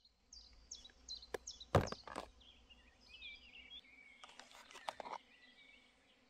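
A small songbird singing: a run of short, falling whistled notes, then a jumbled twittering. A few sharp knocks come about one and a half to two seconds in and are the loudest sounds, with softer clicks a little later.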